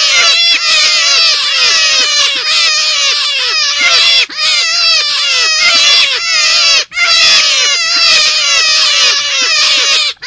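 Forest rabbit calls played as a hunting lure: rapid, high squealing cries, each falling in pitch, about three or four a second, in long runs broken by a couple of short gaps.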